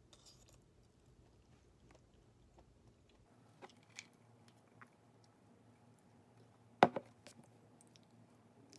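Quiet mealtime sounds at a table: soft chewing and a few light clicks of utensils and a plastic cup, with a sharp double knock about seven seconds in.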